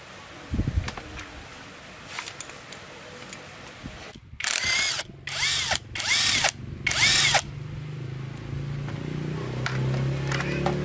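Power drill spinning a socket on a small two-stroke trimmer engine's flywheel nut, in four short bursts whose pitch rises and falls as the motor spins up and slows. Before that comes a single thump as the engine block is handled, with a few small tool clicks.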